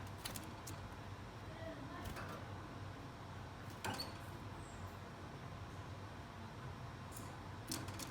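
A few soft, short high chirps from Gouldian finches, among scattered faint clicks and taps, over a low steady hum.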